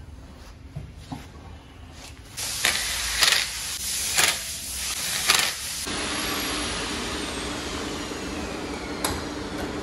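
Hissing: a few loud bursts of hiss, then from about halfway a steady hiss with a low hum and a faint whine falling in pitch, the sound of a two-post car lift lowering the car.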